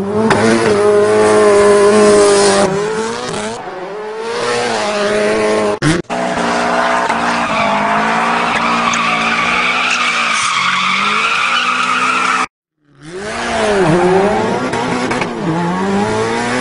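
Dubbed WRC rally car sound: an engine revving up and falling back again and again, with skidding tyre squeal. It comes in several clips joined by abrupt cuts, one with a brief gap of silence about two-thirds of the way through.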